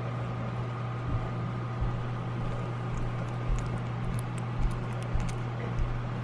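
Guinea pig eating recovery food from a feeding syringe: scattered small clicks of licking and chewing over a steady low hum.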